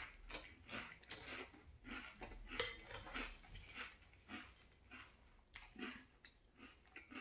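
Crunchy chewing of frosted corn flakes in milk, mixed with a metal spoon scraping and clinking in a ceramic bowl while scooping. A string of short crisp crunches and clicks, one sharper than the rest about two and a half seconds in.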